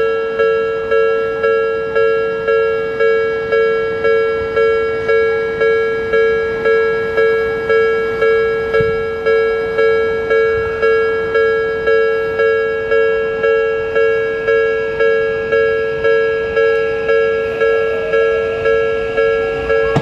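Japanese level crossing warning alarm ringing steadily, two bells at slightly different pitch striking about twice a second. Near the end a rising whine comes in from an approaching Odakyu 5000 series train.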